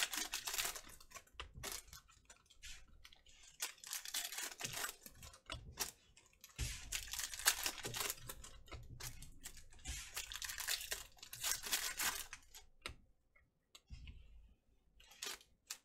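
Foil trading-card pack wrapper crinkling and being torn open by hand, in several bursts of crackling with short pauses between, then a few light clicks near the end.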